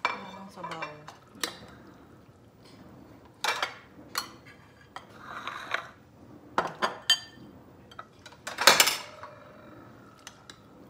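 Metal serving spoons clinking and scraping against ceramic plates and bowls as food is dished out. Scattered clinks and knocks, the loudest a clatter just under nine seconds in.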